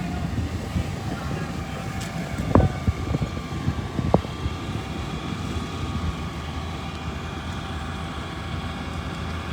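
Wind buffeting the microphone over the steady running of fire engines at the fire scene, with two sharp knocks about two and a half and four seconds in.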